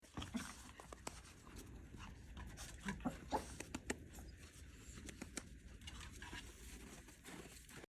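A dog panting, faintly, with scattered soft clicks and knocks from its movement.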